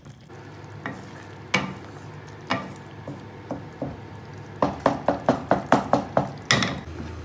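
Wooden spatula stirring a wet vegetable curry in a metal pan, knocking against the pan: a few scattered knocks, then a quick run of about nine knocks a little over four seconds in. A low steady hum runs underneath.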